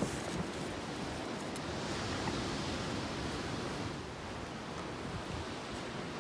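Steady wash of sea surf mixed with wind, swelling about two seconds in as a wave comes in.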